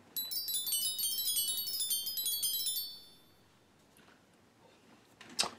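A twinkling cascade of many high, bell-like chime notes, overlapping and ringing for about three seconds before fading out. A single sharp click comes near the end.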